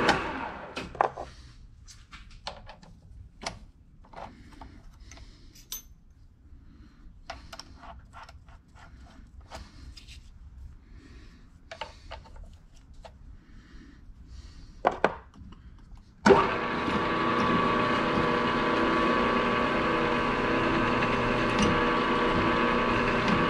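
A milling machine's spindle runs down and stops, then come scattered metal clicks and clinks as the drill bit is taken out of the chuck and a countersink fitted. About sixteen seconds in, the mill's motor switches on suddenly and runs steadily with a steady hum.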